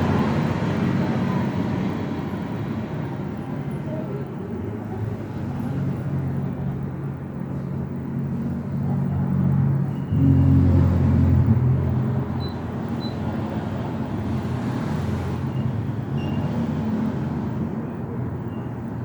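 Low engine-like rumble in the background, louder for a couple of seconds about ten seconds in.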